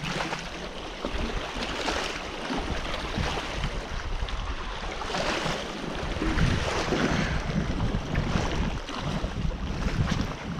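Wind buffeting the microphone in uneven gusts, over the wash of small waves lapping against a rocky lake shore.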